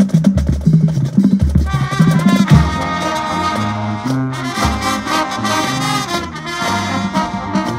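Marching band playing live: the drumline alone at first, then the brass section, sousaphones included, comes in under two seconds in with loud held chords over the drums.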